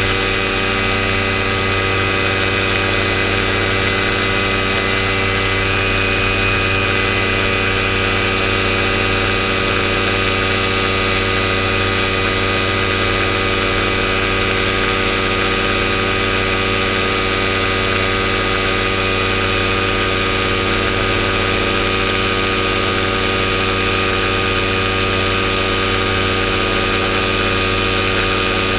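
Paramotor engine and propeller running steadily at high power during a climb just after takeoff.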